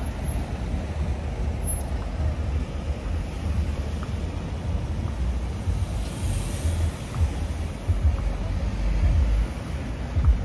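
Road traffic passing slowly in the lane alongside: cars, vans and taxis, heard as a steady, uneven low rumble.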